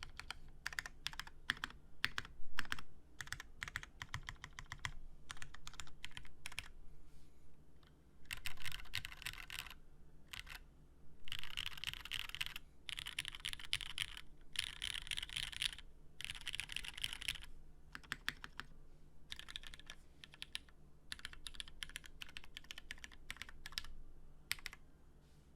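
Custom tenkeyless mechanical keyboard with Hyperglide Cherry MX Black linear switches in a full aluminium top-mount plate and GMK keycaps, being typed on: irregular runs of keystrokes, with several dense bursts of fast typing in the middle.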